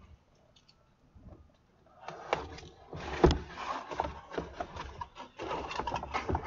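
Cardboard box being handled and opened: cardboard scraping and rustling as the lid is pulled open, starting about two seconds in, with a sharp knock about three seconds in.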